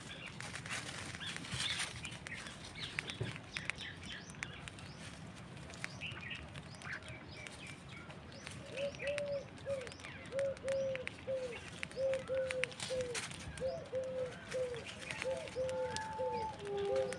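Birds at a feeding spot: scattered chirps and wing flaps, then, from about halfway, one bird repeating a short low note about twice a second.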